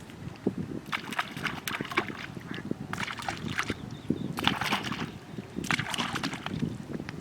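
Water splashing and sloshing in four short bursts, about every second and a half.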